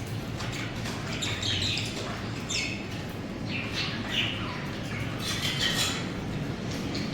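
Budgerigars chirping and chattering, several short chirp clusters every second or so, over a steady low hum.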